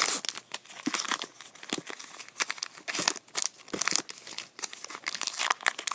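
The wrapper of a 2015 Topps Gypsy Queen baseball card pack being torn open by hand, crinkling and tearing in quick, irregular crackles.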